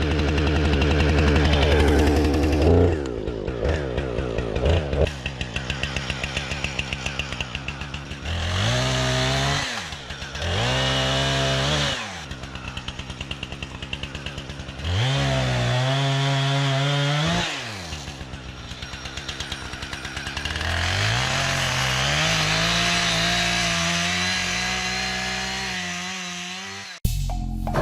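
Chainsaw running: revved up and let fall back several times, with the engine idling between revs. The last rev is held for several seconds and cuts off abruptly near the end.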